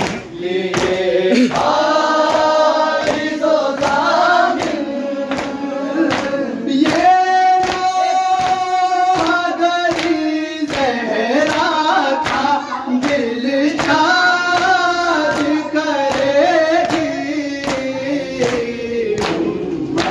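Group of men singing a noha (Shia lament) together, with a steady beat of chest-beating (matam) slaps about two a second.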